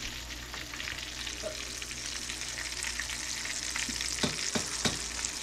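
Hot oil sizzling and crackling as flour-coated pumpkin blossoms fry in a pan, with a few sharper pops about four to five seconds in.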